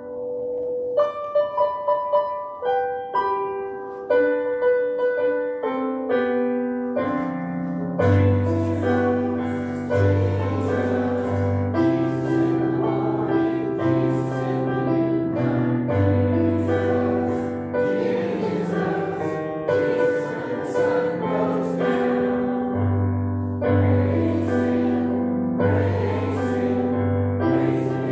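Piano or keyboard music. A slow melody is played in single notes, and from about eight seconds in it is filled out with chords and a low bass line.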